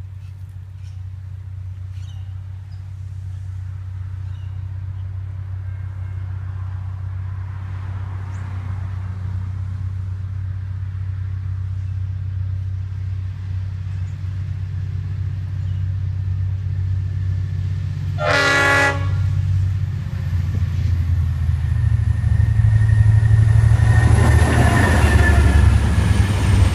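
EMD A class diesel locomotive working under power, its low engine drone growing steadily louder as it approaches. It sounds one short horn blast about two-thirds of the way through. The engine is then at its loudest as it passes, followed by the rumble of cement hopper wagons rolling by near the end.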